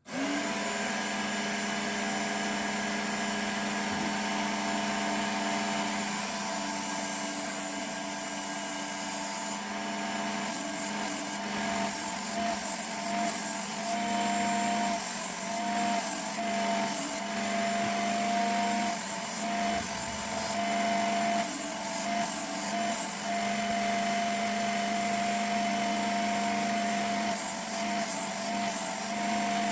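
Work Sharp Knife and Tool Sharpener running, its motor and abrasive belt giving a steady hum. A knife blade is drawn again and again across the coarse-grit belt to raise a burr: repeated short grinding hisses from about six seconds in. The motor starts right at the beginning and cuts off at the end.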